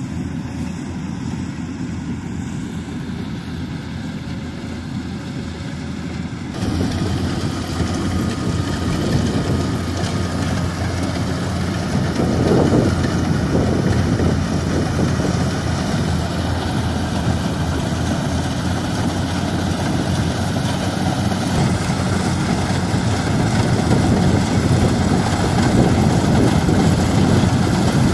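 Rice combine harvester running as it cuts, a steady engine hum with the rattle of its cutting and threshing machinery. It becomes suddenly louder and closer about six seconds in.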